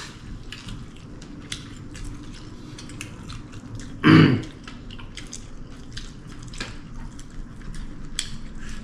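People eating a meal, with scattered small clicks and smacks of food and utensils, and one short, loud throat noise about four seconds in.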